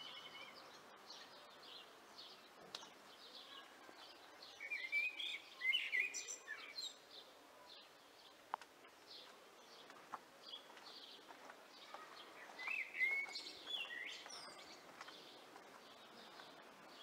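Birds chirping and singing, with louder runs of quick warbled phrases about five seconds in and again about thirteen seconds in, over faint outdoor background noise. A single sharp click comes about eight and a half seconds in.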